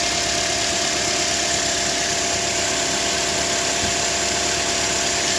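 Toyota Corolla E150 engine idling quietly and evenly, with a steady faint tone over it. A new alternator overrunning clutch pulley has been fitted, and there is no knock or rattle: the noise of the old seized, cracked clutch is gone.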